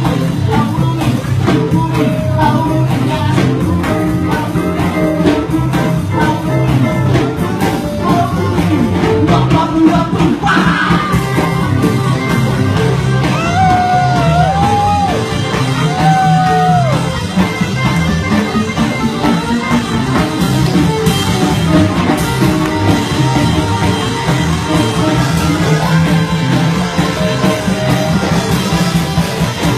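Live rock and roll band playing with guitar over a steady driving beat, with a voice singing at times.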